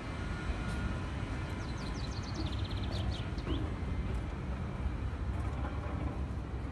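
A steady low outdoor rumble, with a small bird singing a quick run of high chirps ending in a short trill about two seconds in.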